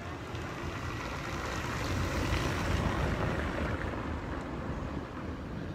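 Wind buffeting the phone's microphone: a steady rushing noise that grows louder about two seconds in and eases off near the end.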